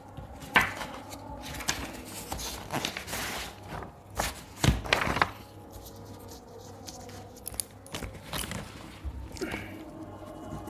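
A stack of paper sheets rustling as it is leafed through by hand and a page is set down, in several short rustles.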